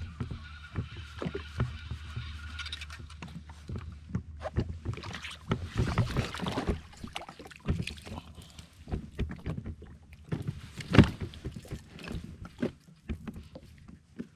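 Fishing rod, reel and line being handled while a snapper is reeled in and lifted out of the water beside a jet ski: irregular clicks and knocks of the gear against the craft, with one sharp knock late on.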